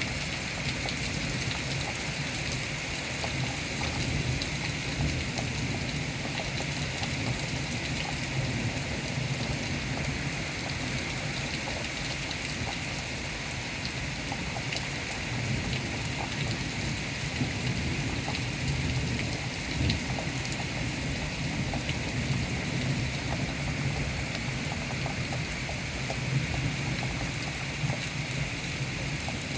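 Steady rain falling during a thunderstorm, an even hiss with many small scattered ticks of drops striking a surface.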